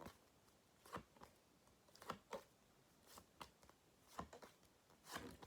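Faint, short papery flicks and taps about once a second: flashcards being turned over one after another.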